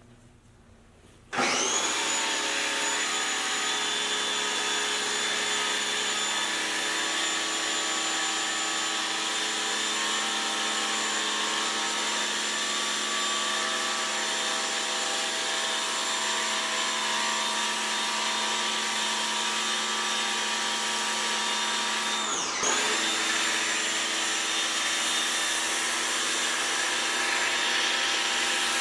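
Pressure washer running a foam cannon: its motor starts about a second in with a steady high whine over the hiss of spray. About three-quarters of the way through it winds down for a moment and spins straight back up.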